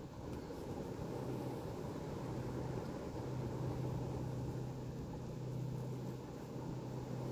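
A distant engine running steadily, a low even hum that swells slightly in the middle, over low outdoor rumble.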